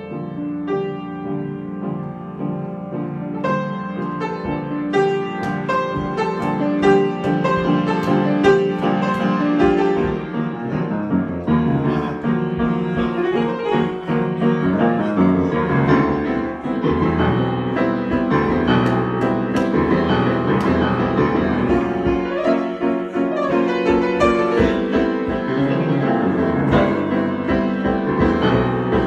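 Piano improvisation, dense and many-noted, growing fuller and a little louder over the first few seconds, with deep bass notes filling in after about ten seconds.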